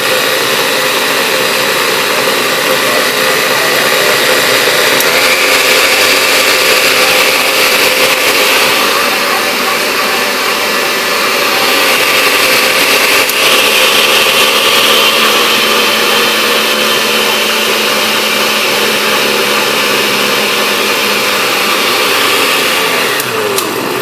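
Older Vitamix blender running on its low speed setting, a loud, steady motor whir with a slight rise in pitch about five seconds in.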